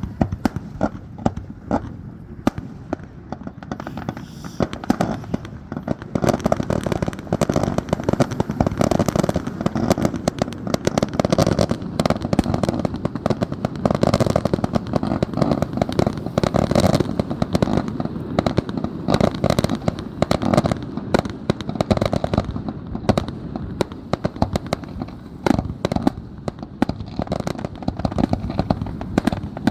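Fireworks finale barrage: a dense, continuous run of shell bursts and crackling reports, many per second, starting right at the beginning and heaviest through the middle.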